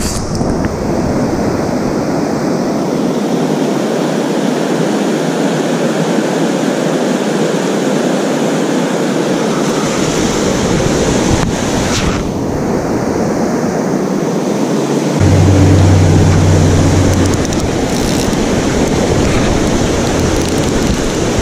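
Fast mountain river rapids rushing over rocks: a steady, loud wash of water noise. A brief low rumble about two-thirds of the way in.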